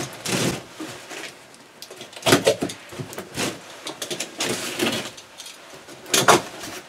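Cardboard box being opened by hand: its end flaps pulled and prised apart, giving a run of scraping, rustling bursts, the loudest near the end.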